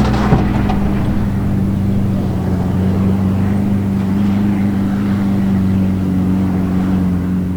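Off-road race vehicle's engine running at a steady, unchanging pitch, with a short knock just as it begins.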